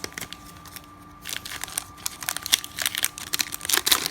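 Crinkling of a trading-card pack wrapper and rustling of the cards as a freshly opened pack of baseball cards is handled. The short crackles come in a run from about a second in until near the end.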